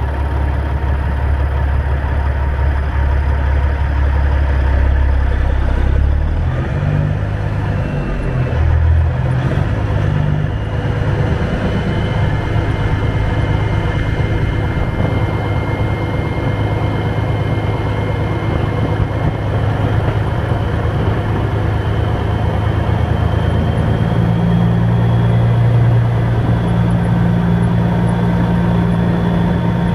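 Semi-truck's diesel engine running steadily, its low hum stepping up in pitch a few seconds in and again near the end.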